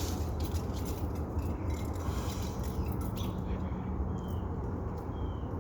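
Faint clicks and knocks of a power window switch and its connector being fitted back into a pickup's door, with two short faint squeaks in the second half, over a steady low hum.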